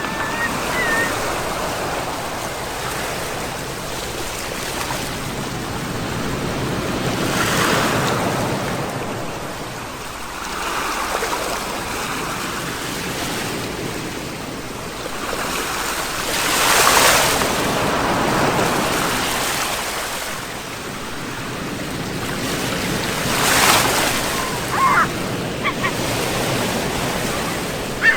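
Sea waves breaking and washing ashore: a steady rush of surf that swells louder about seven, seventeen and twenty-four seconds in. A few brief high-pitched sounds come near the end.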